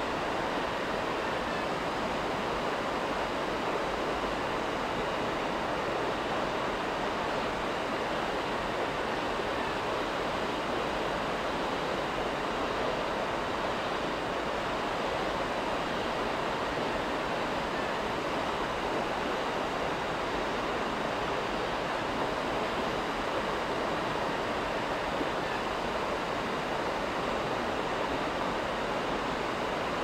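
Steady, even rushing noise with no distinct sounds standing out.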